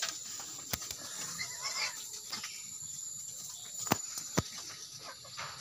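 Farmyard ambience with faint animal calls over a steady hiss, broken by three sharp knocks, two of them close together near the end.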